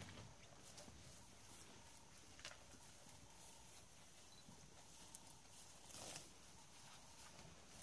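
Near silence, with a few faint rustles and soft knocks from an African elephant tearing up grass with its trunk and feeding. The loudest knock comes a little past halfway.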